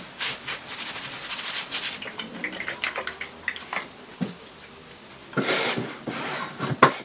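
Handling noise: rustling, rubbing and scraping with scattered clicks. Two louder scraping bursts come near the end, then a sharp click.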